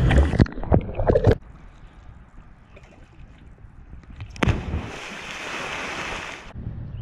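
A cliff jumper hits the water with a loud splash, the spray crashing down for over a second. About four and a half seconds in, a second, quieter splash as another jumper enters the water, followed by a hiss of falling spray for about two seconds.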